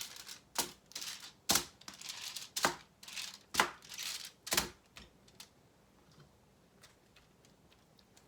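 Sharp crinkling crackles, about one a second: raw chicken thighs being picked up and turned over on a foil-lined pan. They stop after about five seconds.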